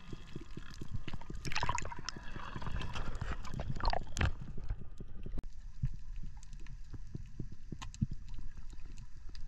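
Underwater sound picked up by a diver's camera: a constant crackle of short clicks over a low water rumble. A burst of bubbling, gurgling water runs from about a second and a half to four seconds in.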